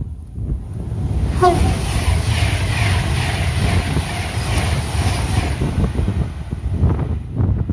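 A train passing at speed: a loud rush of wheel and rail noise builds about a second in and dies away after about five seconds, over a steady low rumble of wind on the microphone. A brief pitched note sounds near the start of the rush.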